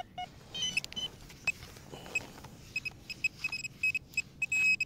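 Handheld metal-detecting pinpointer beeping as its tip is pushed through sand. The short high beeps come faster and merge into a steady tone near the end as it closes on a buried metal target. A few lower beeps sound at the very start.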